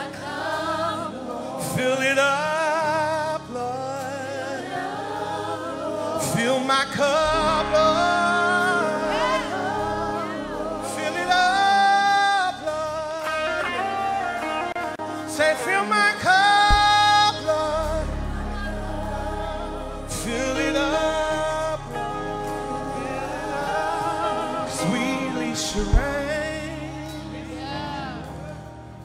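Live gospel worship song: a singer holding long, wavering notes with vibrato over a backing band, with a deep bass note sustained through the second half.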